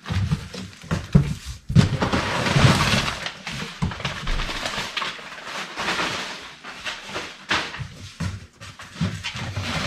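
Brown packing paper crinkling and rustling as it is pulled from a cardboard box and handled, loudest a couple of seconds in and thinning toward the end, with short sharp crackles and knocks among it.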